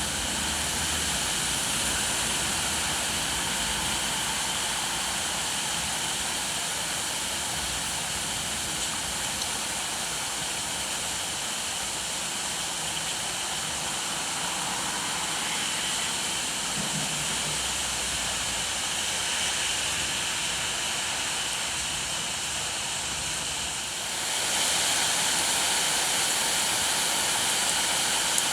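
Steady rainfall, an even hiss, which grows louder about four seconds before the end. A faint low rumble comes and goes underneath.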